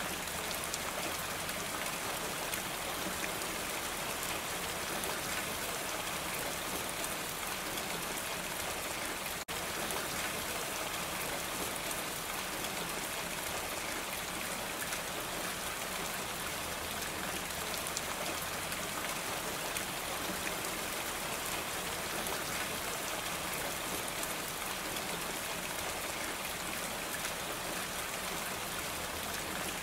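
Steady rain falling on a roof, an even patter with a momentary dip about nine seconds in.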